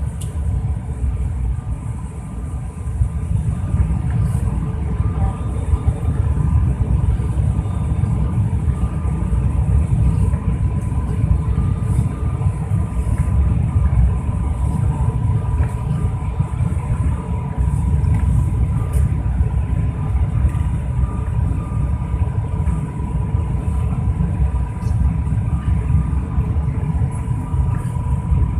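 Airliner cabin noise in flight on descent: a steady low rumble of engines and airflow, with a constant whine.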